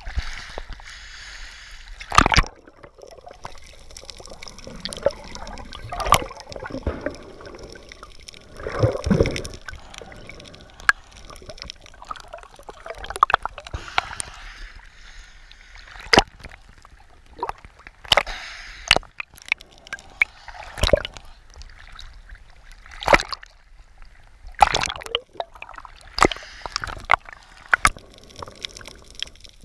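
Water sloshing and gurgling around an action camera at and under the sea surface, with irregular sharp clicks and knocks throughout.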